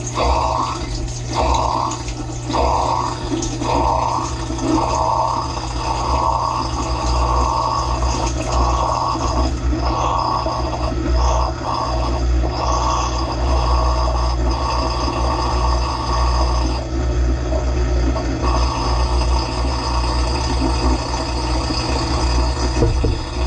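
Dishwasher mid-cycle heard from inside the tub: the pump hums steadily while water sprays from the rotating spray arms and splashes over the dishes. The spray comes in regular surges roughly once a second, the way a spray arm sweeps past.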